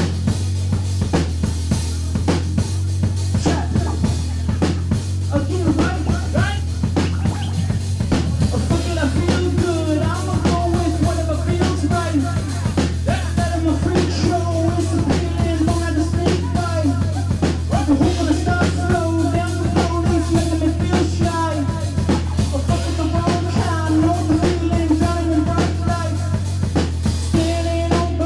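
Live band music: a drum-kit beat over a steady, low, droning bass, with keyboards and a man singing into a microphone from about nine seconds in.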